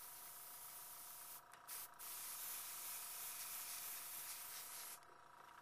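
Copic airbrush system spraying ink from an R27 Copic sketch marker: a steady hiss of air with a steady whine beneath it, broken off briefly about a second and a half in and stopping about five seconds in.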